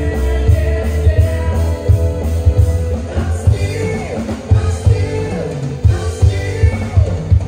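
Live show band playing music with a strong, steady beat, bass and electric guitar; a singer's voice comes to the fore from about three seconds in.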